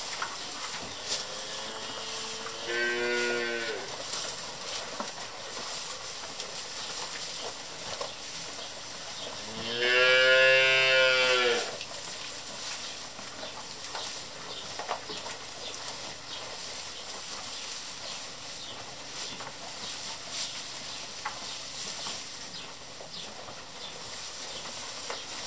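Calves mooing twice, a short call about three seconds in and a longer, louder one about ten seconds in, over the steady crackling rustle of hay and straw being pulled into their feed trough.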